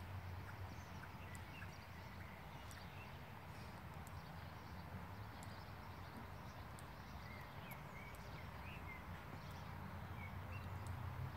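Faint hoofbeats of a ridden horse moving over a sand arena, with a steady low rumble underneath.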